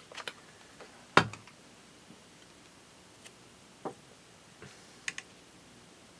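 Scattered light taps and clicks of craft materials being handled and set down on a tabletop, with one louder knock about a second in and a quick double click near the end.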